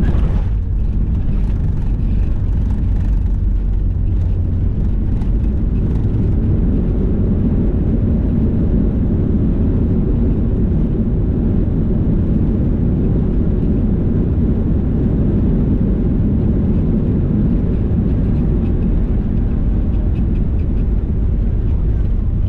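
Cabin noise of a Boeing 737-800 at touchdown and on the landing rollout. A sharp jolt comes right at the start, with light rattles over the next few seconds. After that there is a loud, steady low rumble from the CFM56 engines and the wheels rolling on the runway.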